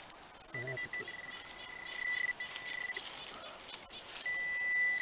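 Handheld metal-detecting pinpointer sounding a steady high tone as its tip is worked through the loose soil of a dig hole, signalling a metal target, here a piece of copper. The tone comes on about half a second in, drops out for about a second past the middle, and returns near the end, over scraping of soil and dry leaves.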